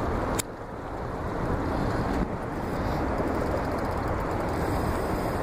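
Wind buffeting the microphone over the rush of moving river water, an even roar with no steady tone. A single sharp click comes about half a second in.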